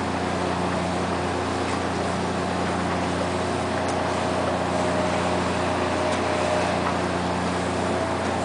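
Steady low drone of a diesel engine running at constant idle, a hum that holds unchanged throughout, as from a moored fishing boat's engine or generator.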